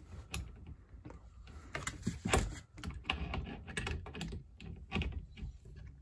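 Irregular clicks and knocks of wrenches on a flare nut as a 3/8-inch refrigerant line is torqued onto a ceiling cassette's connection, one wrench holding back and a torque wrench turning. The sharpest knock comes a little over two seconds in.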